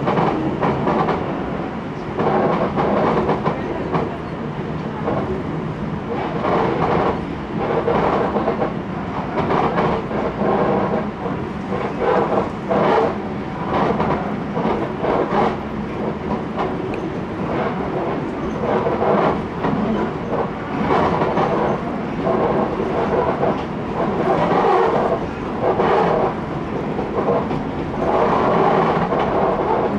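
Running noise heard from inside a former Kintetsu 16000 series electric train under way. The wheels clack over rail joints again and again above a steady rumble and hum.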